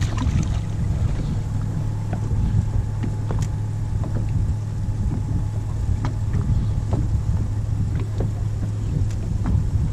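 A boat's motor humming steadily at low speed, with scattered light knocks and splashes of water against the hull.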